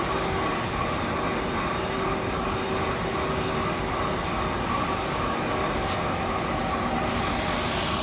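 Machinery running steadily: a constant mechanical noise with a hum of a few steady tones, unchanging throughout.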